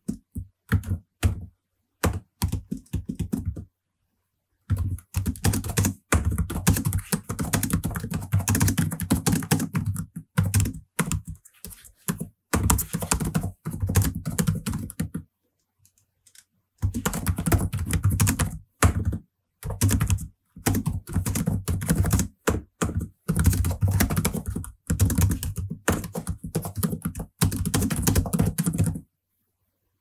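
Fast typing on a computer keyboard: rapid runs of key clicks, broken by short pauses about four seconds in and around halfway, and stopping just before the end.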